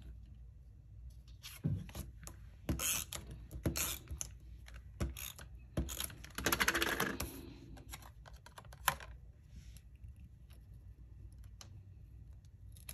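Card stock being handled, slid and pressed down, giving scattered taps and paper rustles, with about a second of rapid fine ticking about six seconds in, like a tape runner laying adhesive on the paper, and a sharp click near nine seconds.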